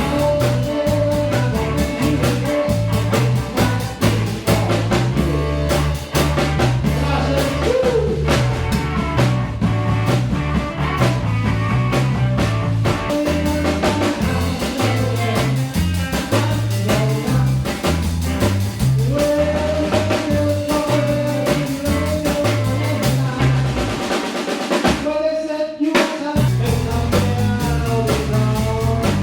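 Blues-rock band music with drum kit and bass under held melodic notes; the bass and drums drop out for about a second near the end.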